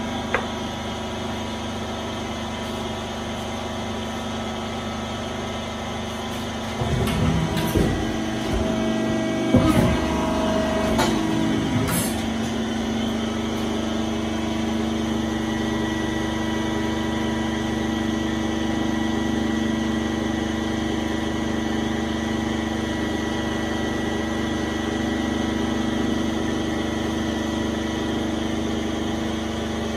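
Schön 6000 hydraulic bridge-type beam cutting press running with a steady machine hum. From about seven to twelve seconds in there is a rougher, louder stretch of clunks and knocks, ending in a sharp click.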